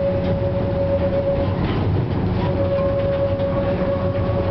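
FVV CSM-4 articulated tram heard from inside the passenger saloon while running: a steady rumble of the wheels on the rails with a steady whine over it. The whine drops out for a moment about one and a half seconds in and then comes back.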